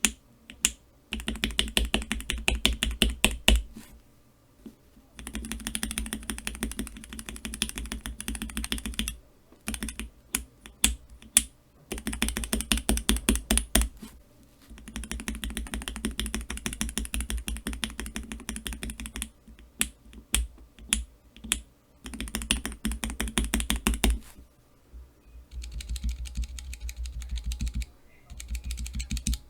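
Cherry MX Black linear mechanical key switches in a keychain switch tester, pressed rapidly in runs of fast clacking a few seconds long. Short pauses and a few single clacks fall between the runs.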